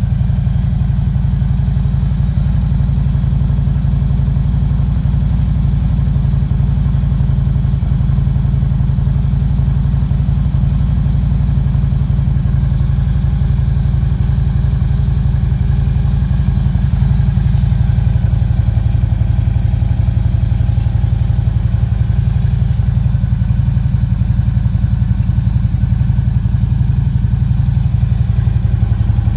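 Harley-Davidson Road Glide Twin Cam V-twin idling through Vance and Hines Power Duals headers and Arlen Ness by Magnaflow mufflers, a steady, deep exhaust note. The engine is still warming up after a cold start, and it gets a little louder about halfway through.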